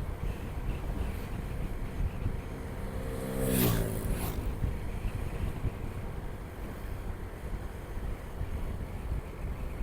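Riding on a motorcycle: wind buffets the action camera over a steady low engine and road rumble. About three and a half seconds in, another vehicle passes close by, getting louder and then dropping in pitch as it goes.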